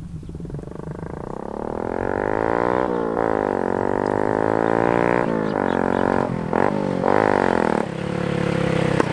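Small underbone motorcycle fitted with a home-made bamboo exhaust, accelerating toward the listener and growing louder. Its exhaust gives a buzzing, pitched note that climbs with the revs and breaks off sharply several times as the rider changes up or lifts the throttle.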